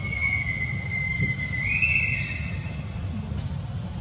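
A baby macaque crying: one long, high-pitched squeal that steps up in pitch about one and a half seconds in and stops about two seconds in, over a low steady rumble.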